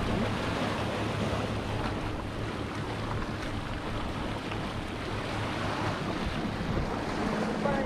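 Sea waves washing and splashing against a rocky shoreline, with wind on the microphone.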